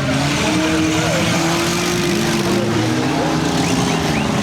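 Several small-car engines running and revving together. One engine holds high revs, then eases off a little under three seconds in, over a dense noisy background.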